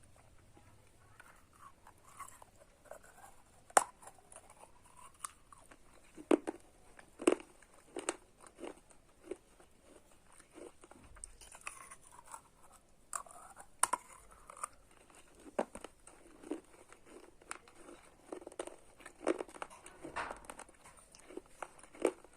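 Slate pencils being bitten and chewed close to the microphone: irregular sharp crunches and snaps, the loudest about four seconds in, between softer grinding chews.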